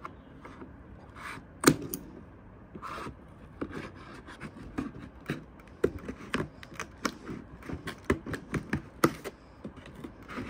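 Cardboard box packaging being handled while unpacking: an irregular run of short scrapes, rustles and knocks, the sharpest about a second and a half in.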